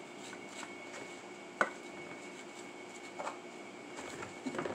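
A knife scraping and tapping against a metal baking pan while brownie dough is spread, with one sharp click about one and a half seconds in and a few softer scrapes later. A faint steady hum runs underneath.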